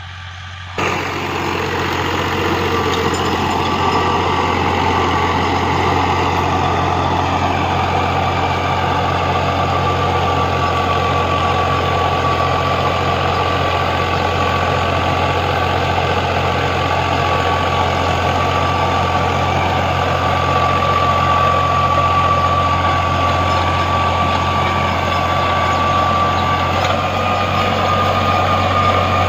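Al Ghazi 65 hp tractor engine running steadily, with a steady high whine over the low engine hum. It gets suddenly louder about a second in.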